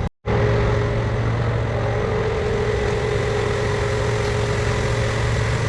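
A steady mechanical hum from a running motor or engine, holding one pitch with several constant tones, starting and stopping abruptly.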